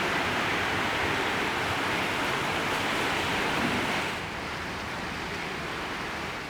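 Steady rushing of floodwater running along a flooded street, dropping to a quieter level about four seconds in.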